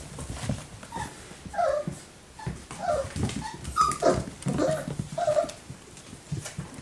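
Four-week-old puppies giving a string of short yips and whimpers, some sliding down in pitch, while they scuffle in play with an adult dog.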